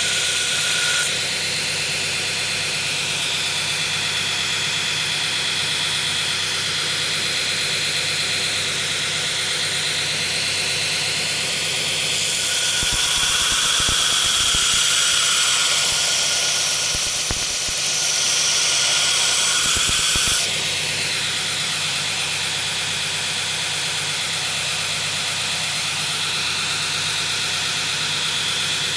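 Belt grinder running steadily on a worn 36-grit belt, with louder stretches of grinding as a knife blade is held to the belt to take the sharp corners off its edge, the longest from about twelve to twenty seconds in.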